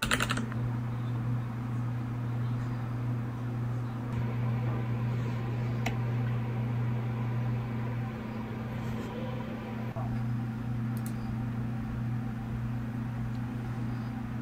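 A steady low hum with a light hiss, holding even throughout, with a few faint clicks, about six and eleven seconds in.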